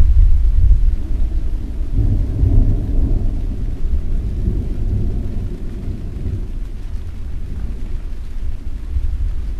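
Rolling thunder rumbling deep and low, swelling about two to three seconds in and then slowly dying away, over a faint steady hiss of rain.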